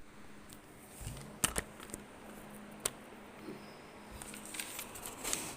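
A few sharp clicks, then light rustling, from objects being handled close by, over a faint steady hum.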